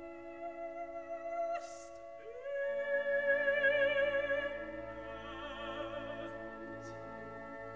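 An operatic contralto sings a slow, sustained phrase with wide vibrato over held orchestral chords. There is a hissing consonant about one and a half seconds in, then a note that slides up into the loudest, longest-held tone near the middle.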